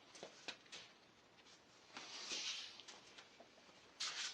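Faint handling noises of hand tools on a workbench: a few small clicks, a short rustle about two seconds in, and a brief scrape near the end.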